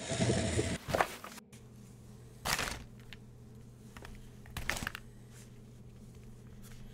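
A short rushing burst and a sharp knock, then a machine's steady low hum switches on and keeps running, with two brief hisses over it.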